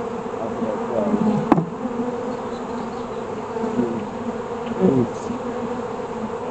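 Honey bees buzzing around an opened hive: a steady hum with individual bees passing close, their pitch wavering up and down. A single sharp click about a second and a half in.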